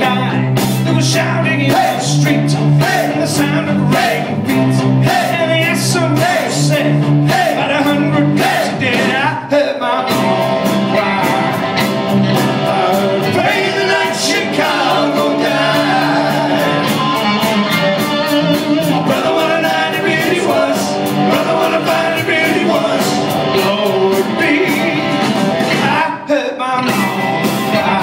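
Live rock band with electric guitars, bass guitar, drum kit and keyboards playing through stage amplifiers, with singing over it. The band drops out briefly twice, about a third of the way in and near the end.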